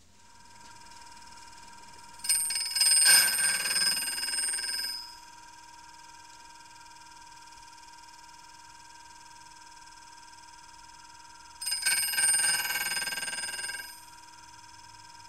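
Tradesman Machinist DC bench grinder running with a steady whine. Twice its wheel grinds the corner of a carbide end mill, each pass a louder high-pitched ringing lasting about two to three seconds.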